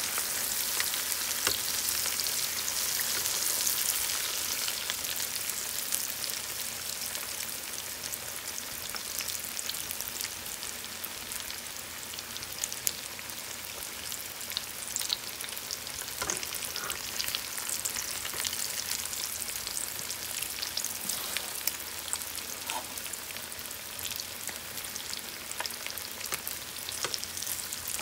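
Breaded chicken cordon bleu frying in hot cooking oil in a pan: a steady sizzle with many small crackling pops, a little louder for the first few seconds and then settling.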